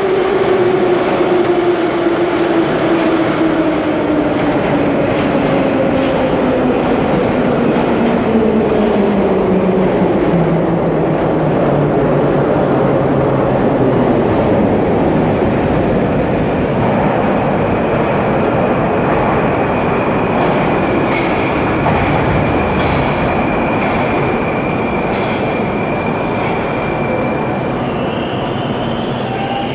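Moscow metro trains in the station: a steady rolling rumble with a motor whine that falls steadily in pitch over the first twelve seconds or so. In the second half thin high whining tones come in as an 81-765 'Moskva' train pulls in at the platform.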